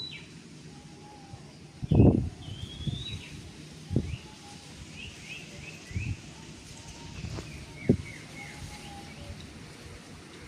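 Small birds chirping with many short, quick calls, over a steady outdoor background. Low thumps come roughly every two seconds, the loudest about two seconds in.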